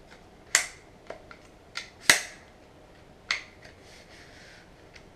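Daniel Defense adjustable AR stock being slid along the buffer tube, its lock snapping into the position notches: three sharp clicks and several lighter ones, with a short scraping slide near the middle. The stock is a little stiff to move.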